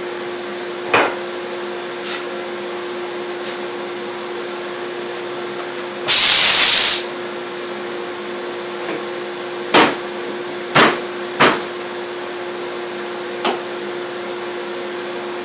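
Steady motor hum from the running CNC router setup, holding one constant tone. About halfway through comes a loud hiss lasting about a second, and a few sharp knocks come as parts are handled on the machine's bed.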